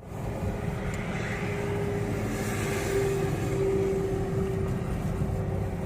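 A steady low engine rumble with a held droning hum.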